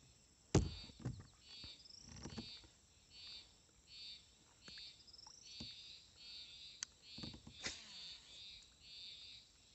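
A small animal's high-pitched trilled chirps repeating steadily, about one and a half a second. A sharp knock about half a second in, and a few fainter clicks later.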